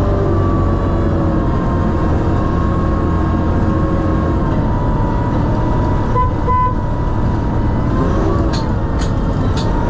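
Sherp amphibious ATV's diesel engine running steadily under way, a deep rumble with a steady whine on top. A few light clicks come near the end.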